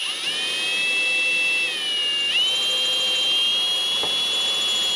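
Cordless drill motor whining on its drill setting as a small twist bit is pressed into the steel retaining pin of an N54 turbo's wastegate. The pitch sags briefly about two seconds in, then climbs back and holds steady. The bit is not cutting: nothing is coming out of the pin, which the owner takes for hardened steel.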